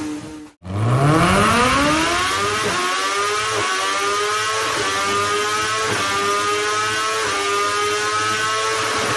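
BMW 1000-class superbike's inline-four engine accelerating hard. Its note climbs steeply, then steps through several quick upshifts about a second apart, each a short dip in pitch followed by a climb.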